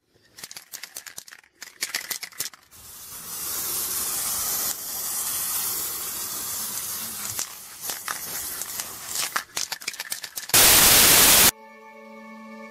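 Logo-intro sound effects: irregular crackling clicks, then a long hissing noise and more crackles, then a loud burst of static lasting about a second, the loudest part. Near the end, steady held music tones begin.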